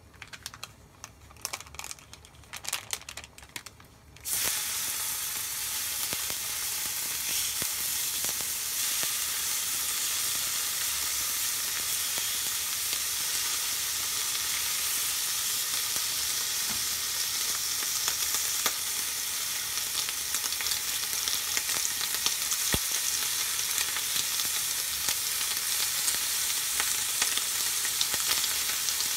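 A few light clicks, then about four seconds in bacon strips go into a hot oiled frying pan and start sizzling steadily, a dense hiss of frying fat that keeps on without letting up.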